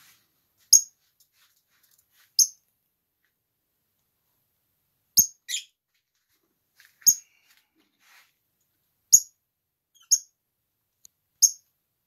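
Peach-faced lovebirds giving short, sharp high-pitched chirps, about seven spread through, one near the middle trailing down into a falling note.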